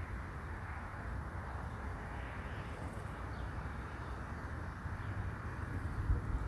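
Steady outdoor background noise with a low, fluctuating rumble and no distinct events.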